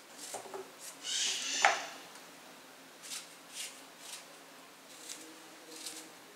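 Small kitchen knife cutting crisp jambo (Malay apple) fruit: a series of short, crunchy cuts spaced irregularly about half a second to a second apart. A little after a second in there is a louder, longer rustle that ends in a sharp clack, the loudest sound here.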